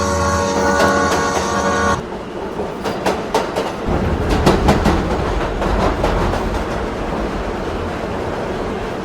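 A train horn sounding one steady blast for about two seconds. Then a train runs through with rumbling and repeated clicking of wheels over rail joints, gradually getting quieter.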